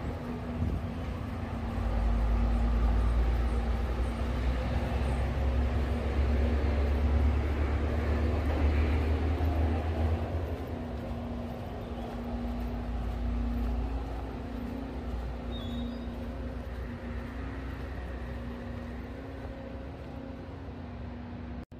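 Low rumble of a passing vehicle, building up about two seconds in and fading away around ten seconds, over a steady low hum.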